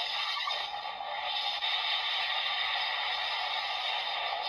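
Electronic sound effect from a Kamen Rider Geats Laser Raise Riser toy playing through its small built-in speaker: a steady hissing effect with no low end.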